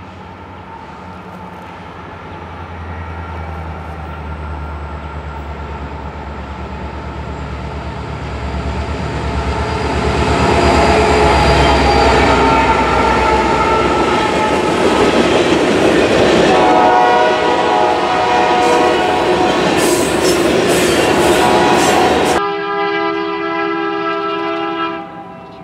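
Norfolk Southern freight train passing: the diesel locomotives rumble louder as they come by, the horn sounds for several seconds, and the wheels clatter over the rail joints. Then, abruptly, another train's horn blows steadily as that train approaches, led by BNSF SD70MAC #9676.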